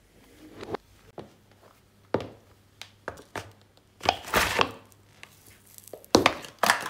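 A shoe squashing a button mushroom on a hard floor, with a few softer crushing sounds. Then two paper cups are crushed under a shoe one after the other, giving two loud crumpling crunches about two seconds apart.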